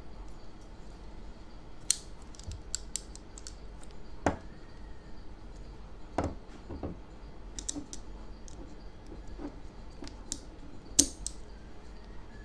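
Scattered small clicks and taps of hands handling a stainless-steel rubber-band pistol while a rubber band is hooked onto its brass muzzle, with a few louder knocks, the loudest near the end.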